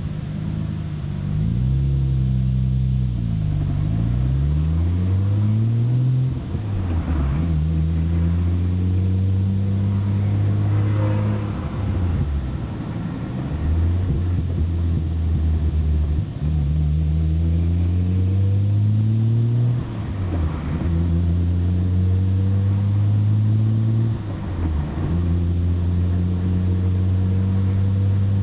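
Nissan Skyline GT-R (BNR34) twin-turbo straight-six under way with the windows open. The engine climbs in pitch and then drops sharply about five times as gears are changed. The owner reports an abnormally loud rattle from the stock Getrag six-speed gearbox while driving in first and sixth gear, which he fears needs an overhaul.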